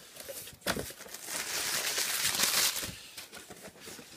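Cardboard shoebox being opened by hand: a knock about two-thirds of a second in, then a stretch of rustling and crinkling of cardboard flaps and paper packing, fading to lighter handling noise near the end.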